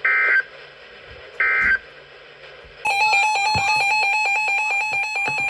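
Two short bursts of EAS end-of-message data tones, the warbling SAME squeal that closes an alert, about a second and a half apart. A little under three seconds in, a loud, rapidly pulsing two-tone electronic alert buzz starts and holds.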